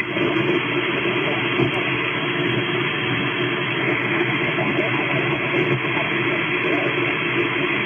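Steady hiss and static of a shortwave transceiver receiving the 20-metre amateur band in upper sideband between transmissions, with no station coming through. The noise has a narrow, muffled quality with no high end, shaped by the receiver's voice filter.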